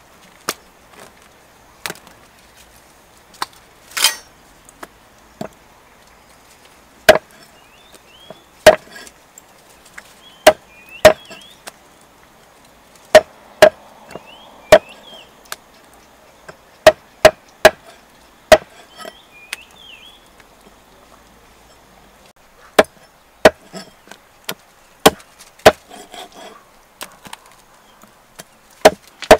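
Meat cleaver chopping frogs on a thick round wooden chopping block: sharp, irregular chops. They come only now and then at first, then more often from about a quarter of the way in.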